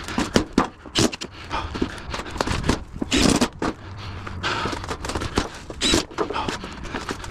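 Metal roofing panels being handled and fitted together: irregular knocks and clicks with short stretches of scraping as one sheet is worked onto the next.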